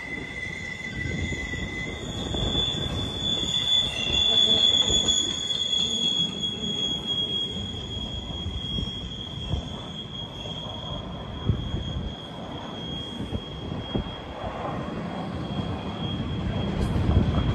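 Freight train rolling by, its wheels squealing against the rails in a high, steady tone that holds for most of the passage, over the low rumble of the cars. A lower squeal sounds briefly at the start.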